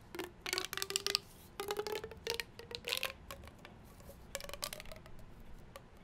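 A plastic pop tube fidget toy being stretched and squeezed, its corrugated ridges snapping open and shut in about five quick runs of clicks. A faint tone sounds under some of the runs.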